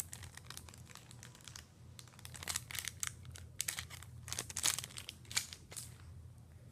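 Packaging being handled, with soft on-and-off crinkling and rustling. A faint steady hum runs underneath.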